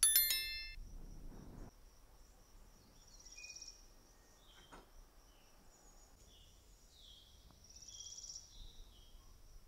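A short bright chime right at the start, then quiet countryside ambience: a faint steady high insect buzz with brief chirping swells and a few faint bird calls.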